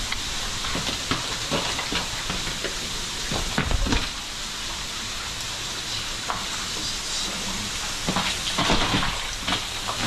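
Meltwater falling and spattering behind a frozen waterfall: a steady hiss with scattered drips and ticks, and a low thump about three and a half seconds in.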